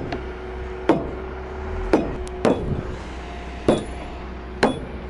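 A hammer striking a steel pry bar wedged into heavy timber: six sharp blows about a second apart, some with a short metallic ring.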